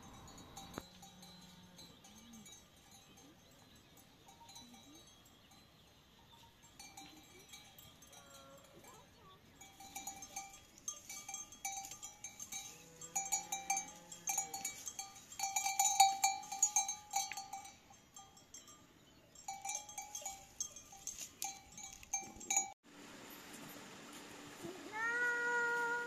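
A livestock bell clanking in a rapid, irregular rhythm for about ten seconds in the middle, with a few scattered animal calls around it. Near the end, after a sudden break, a cat meows.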